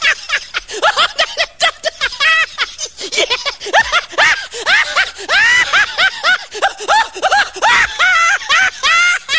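High-pitched laughter: quick 'ha' cries, each rising and falling in pitch, several a second, going on without a break.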